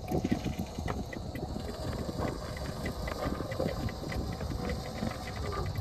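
Vintage wrecker's winch slowly hauling in its cable under load as an overturned side-by-side is pulled upright: a low steady rumble with a fast run of faint clicks.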